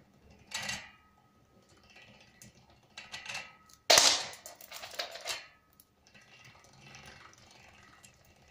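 Bicycle chain and gear sprockets of a hand-cranked drive clicking and rattling as they spin the rear wheel, with a sudden loud metallic clank about four seconds in followed by a second or so of clatter.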